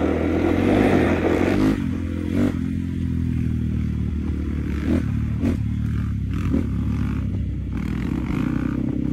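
Motorcycle engine running as the bike is ridden along the street. It is louder and harsher for the first second and a half or so, then settles into a steady run, with a few light knocks in the second half.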